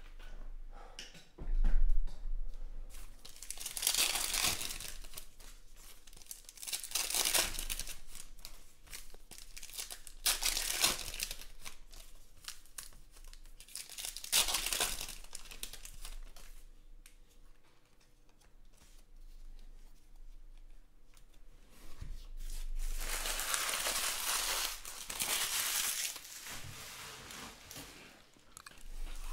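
Trading-card packs being torn open and their foil wrappers crinkled, in several short bursts a few seconds apart and a longer stretch near the end. A single thump on the table about two seconds in.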